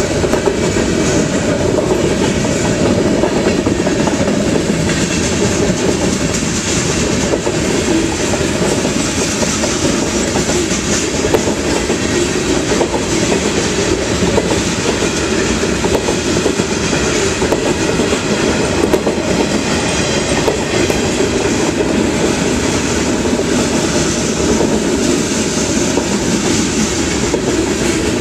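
Freight train cars rolling steadily past a grade crossing, with a continuous rumble and the clatter of wheels over the rails. Heavy rain hisses over it.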